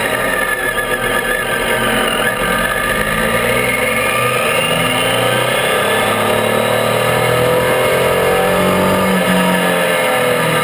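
Triumph Tiger 800's three-cylinder engine pulling the motorcycle along. The revs drop in the first couple of seconds, climb steadily through the middle, and fall again near the end.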